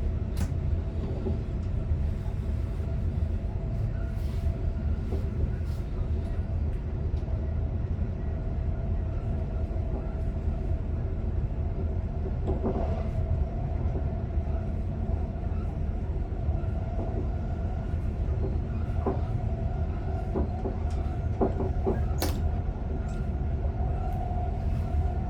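Commuter electric train running steadily, heard from the driver's cab: a constant low rumble with a steady whine on top and scattered clicks from the wheels on the track.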